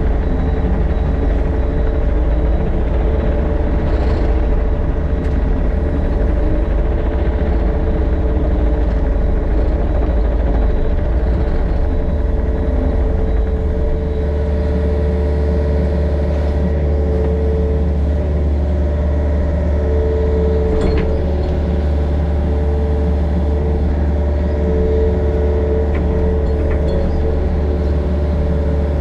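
Excavator's diesel engine running steadily at working speed.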